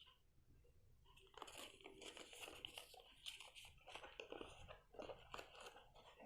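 Faint rustling and crinkling of watch packaging being handled and opened, as irregular small crackles starting about a second and a half in.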